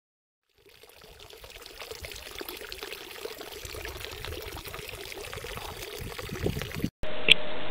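A steady rushing, water-like noise fades in from silence and slowly grows louder, then cuts off abruptly near the end. A steady hum and a single click follow it.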